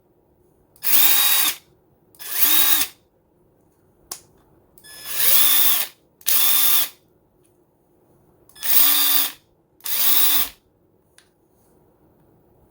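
Ryobi P263 cordless impact wrench's brushed motor run free with no load on its top speed: six short trigger pulls, in three pairs, each a whine that climbs quickly and then holds steady for about half a second. The new brushes are sparking as they break in.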